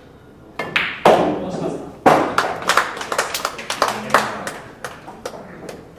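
A pool shot, the cue striking the ball and the object ball dropping, followed from about two seconds in by a few people clapping for about three seconds.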